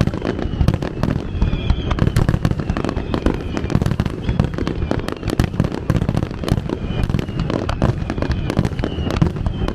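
Japanese fireworks display: a dense, continuous barrage of booms and crackling bursts, many shells going off every second.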